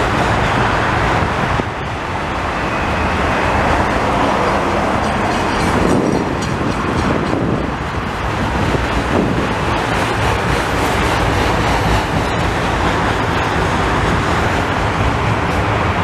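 Freight train of autorack cars rolling past, a loud steady noise of wheels on rail.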